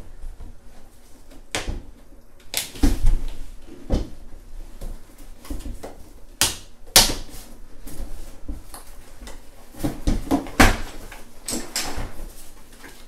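Irregular knocks and clicks of hard plastic parts being handled and pressed together, as a fabric seat pad and armrests are fitted onto a high chair's plastic seat. The loudest knocks come about three, four, seven and ten and a half seconds in.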